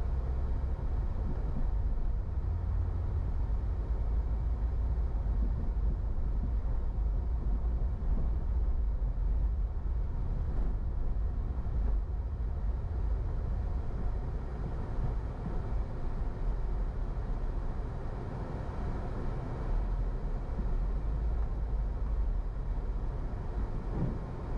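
A car driving on city streets: a steady low rumble of engine and road noise.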